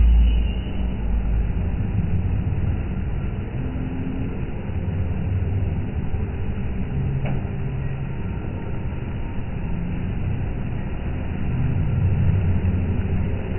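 Water jets of a lit fountain spraying and splashing, over a steady low rumble of traffic.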